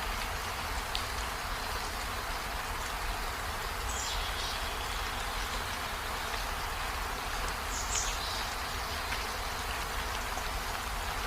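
Steady rain falling on foliage and a window, an even hiss with the odd separate drop tick. A short high chirp sounds twice, about four seconds in and again near eight seconds.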